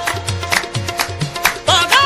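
Qawwali music: an instrumental passage of steady held harmonium notes over a quick drum beat, with the singer's voice coming back in near the end.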